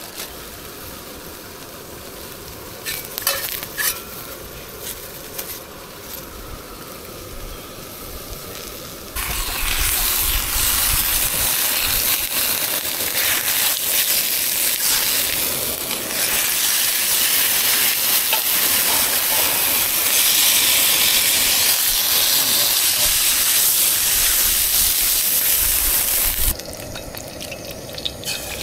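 Food frying in hot fat in a pan on a camp stove, with a spatula working it: a loud, even sizzle that starts abruptly about nine seconds in and stops abruptly a couple of seconds before the end. Before the sizzle there is quieter handling with a few clicks.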